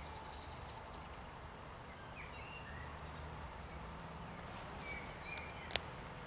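Low, steady rumble of a distant 2M62UM diesel locomotive's engines as it pulls away with a freight train, with small birds chirping over it. One sharp click near the end.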